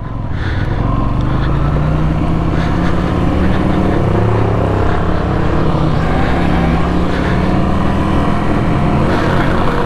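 Motorcycle engine running on the move, heard from the rider's helmet with wind rushing over the microphone; the engine note rises as the bike speeds up about four seconds in.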